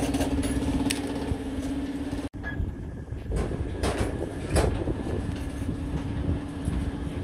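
A machine runs with a steady hum, which stops abruptly a little over two seconds in. After that a low rumble with scattered knocks and clicks.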